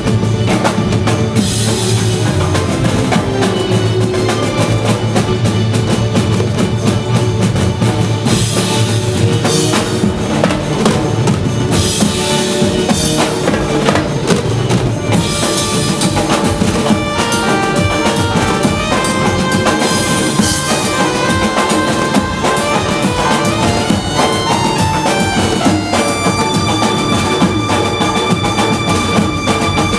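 A banjo party band playing dandiya music: dense, fast drumming with bass drum and rolls, joined about halfway through by a melody of long held notes.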